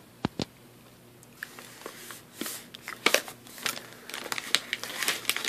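Plastic cough drop bag crinkling as it is handled, in many quick crackles, after two short clicks near the start.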